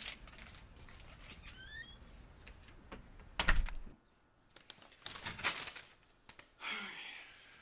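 Paper takeout bag rustling as it is handled, with a loud thump about halfway through. After that come more short bursts of rustling.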